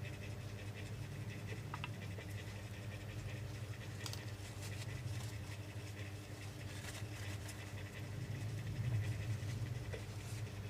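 A steady low hum, with faint scratching and a few small clicks over it.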